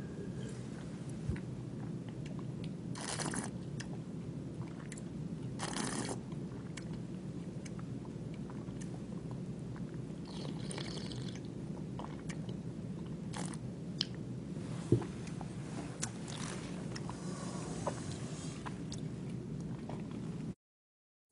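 Wine tasting mouth sounds: two short slurps of red wine drawn in with air, then swishing and small wet mouth clicks as the wine is worked around the mouth, and the taster spitting into a metal spit bucket near the end. A steady low hum runs underneath, and the sound cuts out abruptly just before the end.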